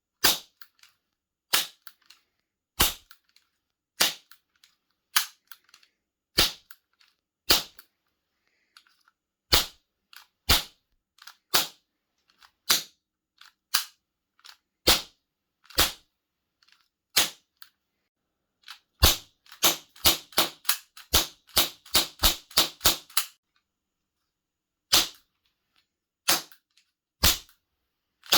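Mattel Fanner 50 toy cap gun firing caps: sharp single bangs about a second apart, then, about two-thirds of the way in, a rapid run of about a dozen shots over four seconds, then a few more single shots.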